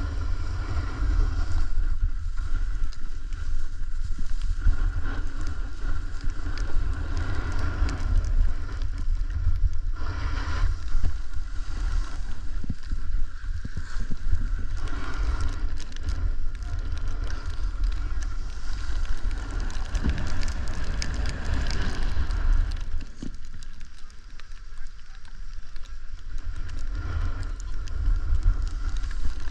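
Wind rumbling across a helmet or body camera's microphone, over the steady hiss and scrape of a snowboard sliding on snow. The scraping rises and falls with the turns.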